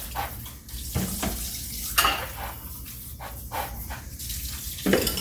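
Kitchen sink sprayer spraying water to rinse dishes, a steady hiss with a few sharp knocks about one, two and five seconds in.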